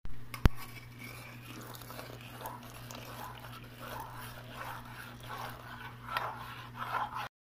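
A metal spoon scraping and knocking against the aluminium pot as milk is stirred, with a low steady hum underneath. A sharp click about half a second in is the loudest sound, and the scraping grows busier near the end.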